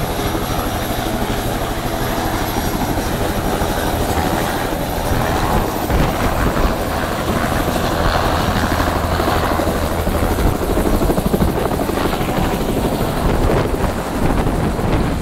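Bell 206 JetRanger-type turbine helicopter with a two-bladed main rotor spooling up on the pad and lifting off, with a high turbine whine under the rotor noise. The rotor noise grows louder and choppier from about five seconds in as it takes off.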